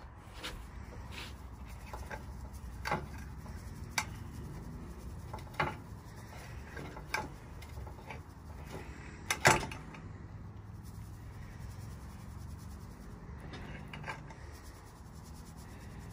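Stainless steel mesh strainer shaken and tapped while sifting brown sugar, with light scraping and a string of sharp taps, the loudest about nine and a half seconds in.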